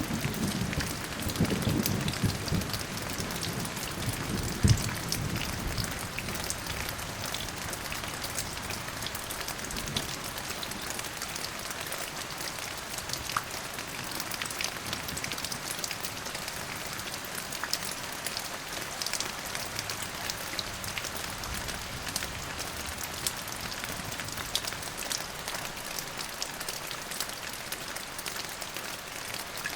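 Steady rain falling on a surface, a dense patter of drops, with the tail of a low thunder rumble dying away over the first few seconds.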